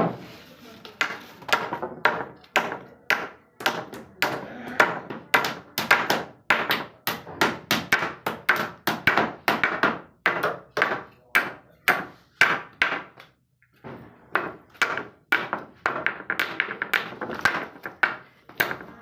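Repeated sharp knocks, like a tool striking during building work, about two to three a second, with a brief pause about two-thirds of the way through.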